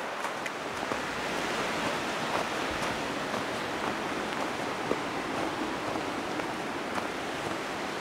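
Steady rushing of a mountain stream, with scattered faint crunches of footsteps on the snowy path.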